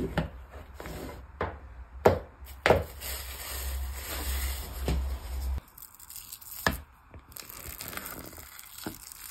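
Plastic food-storage container handled: sharp clicks as the lid's clips and the lid come off, then plastic cling film crinkling as it is peeled from the surface of homemade miso, with a few fainter clicks and knocks later.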